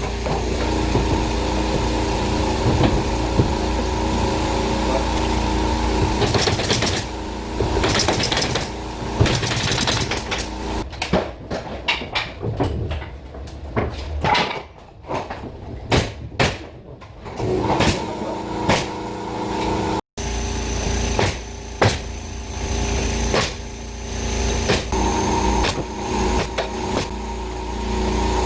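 A small motor running steadily, with many sharp clicks and knocks scattered over it and a brief break about twenty seconds in.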